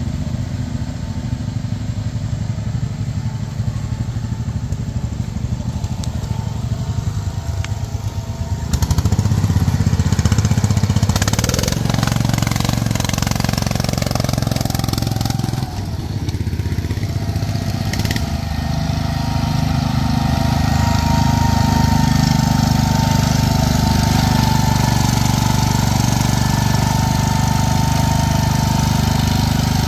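Wheel Horse garden tractor's engine running hard while driving through mud. It gets louder about nine seconds in, dips briefly past the middle, then runs loud again.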